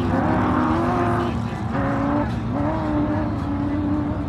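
Off-road vehicle engines revving high and holding, the pitch stepping up and dropping back about every second, over a steady low engine rumble.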